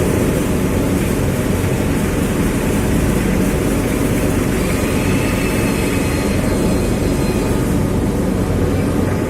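Forklift engine running steadily under a loud, constant mechanical noise.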